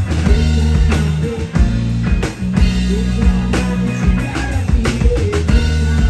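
Live rock band playing: electric guitar, electric bass and drum kit, with held bass notes under a steady drum beat.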